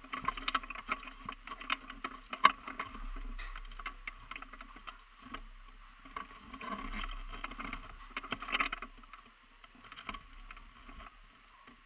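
Rustling, knocking and footsteps of a player moving with his gear, picked up by a body-worn action camera: irregular clicks and knocks, busiest at the start and again about seven to nine seconds in, with one loud sharp knock about two and a half seconds in.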